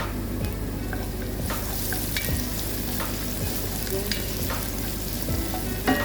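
Chopped onions sizzling in hot oil in a cooking pot while being stirred, the utensil knocking and scraping against the pot about once a second, with a louder knock near the end.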